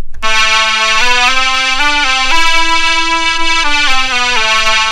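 Synth lead virtual instrument played from a USB MIDI keyboard controller: a short melody, one note at a time, about nine held notes stepping up and down with no gaps between them, fading out near the end.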